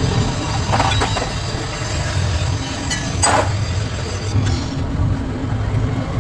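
Steady low rumble of a vehicle, with a few brief higher-pitched sounds about a second in and again a little past three seconds.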